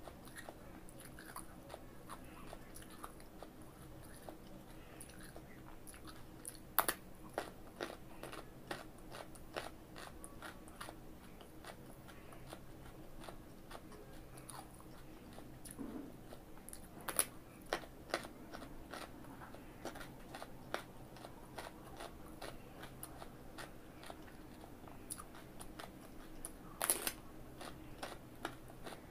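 Raw carrot being bitten and chewed: three loud, crisp snapping bites roughly ten seconds apart, with a steady run of crunching chews between them.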